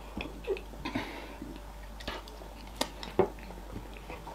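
Close-miked eating sounds: chewing, with the soft wet squish of fufu and okra soup being worked by fingers on a plate. A few short, sharp clicks and smacks stand out, the loudest around the middle.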